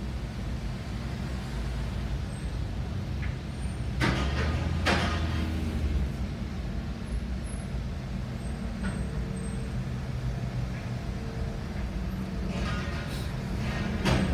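Low steady rumble of a car creeping along in a queue, heard from inside its cabin, with a few loud knocks and clatters about four to five seconds in and again near the end.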